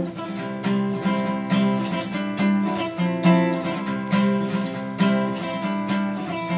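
Acoustic guitar strummed in a steady rhythm, a strong strum about once a second with lighter strums between, chords ringing on.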